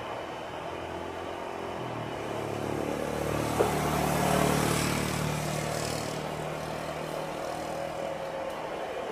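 Boeing 737-800's CFM56-7B jet engines running at taxi power as the airliner turns onto the runway: a steady hum that swells about midway and eases off again. A single brief click about three and a half seconds in.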